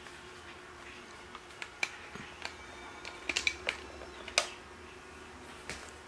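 Hard plastic clicks and knocks as the dust-bin unit of a Proscenic P6 handheld vacuum is unlatched and pulled off. The clicks are scattered, with a quick cluster about three seconds in and the loudest snap about four and a half seconds in.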